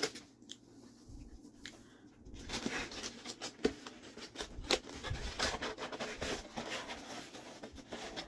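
Cardboard pizza box being handled: rustling, scraping and light knocks as the lid is closed and the box is slid aside, starting about two and a half seconds in.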